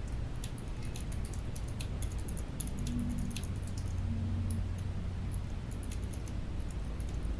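Typing on a Keychron K7 ultra-slim low-profile mechanical keyboard: quick, irregular key clicks, densest in the first three seconds and sparser after.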